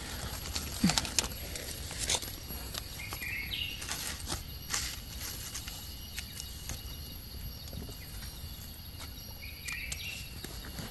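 Dry fallen leaves crackling and rustling with scattered sharp clicks as a knife and gloved hands dig wild mushrooms out of the forest floor. Two short bird chirps, about three seconds in and near the end.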